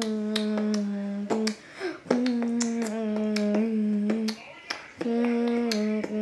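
Human beatboxing: a steady hummed note held in phrases of a second or two, with sharp clicks on top about three times a second.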